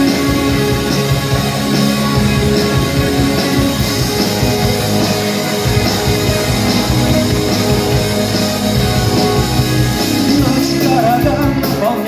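Rock song playing, a full band; a singing voice comes in near the end.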